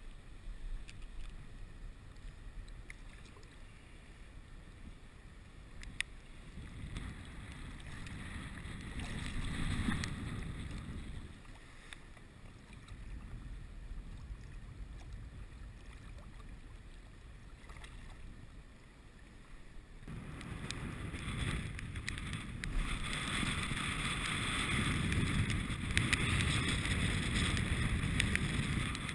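Water sloshing and splashing with wind buffeting the microphone. It swells twice, once about a third of the way in and again, louder and longer, over the last third.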